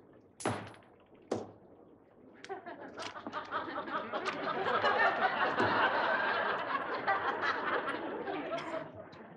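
Two sharp knocks about a second apart, then a studio audience laughing, swelling to a peak midway and dying away near the end.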